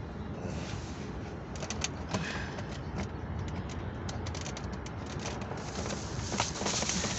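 Light clicks and rattles of plastic center-console trim pieces being handled and fitted back into place, over a steady low background noise. The handling grows louder near the end.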